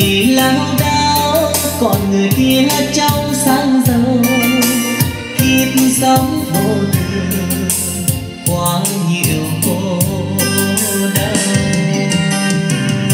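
A karaoke song played through powered karaoke speakers: a voice singing a wavering melody over a backing track with a steady drum beat.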